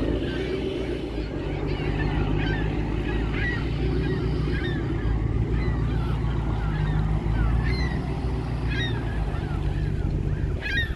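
Gulls calling over and over, short rising and falling cries, above the steady low rumble of an idling engine.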